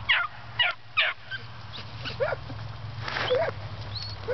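Hunting puppies yipping and barking while chasing rabbits: a string of short, high-pitched yips, about eight in four seconds, irregularly spaced.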